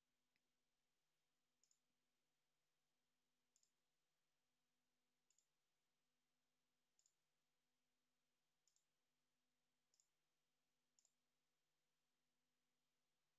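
Near silence, with seven faint computer mouse clicks spaced about one and a half to two seconds apart, each a quick double tick of the button pressing and releasing.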